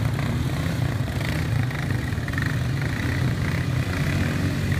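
ATV engines running steadily with a low, even hum.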